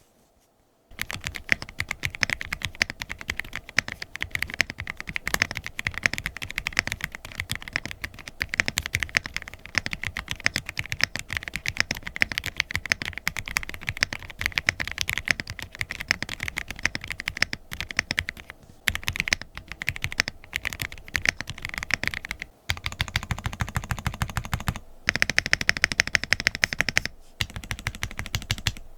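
Mechanical keyboard fitted with factory-lubed Gateron UHMknown linear switches (UHMWPE stems, nylon housings) being typed on continuously, starting about a second in. Near the end the keystrokes come in a fast, even run of rapid repeated presses.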